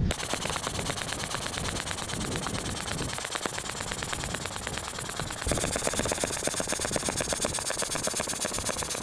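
Pump inflating an inflatable boat: a fast, even rattle of many strokes a second, which turns brighter and hissier about five and a half seconds in.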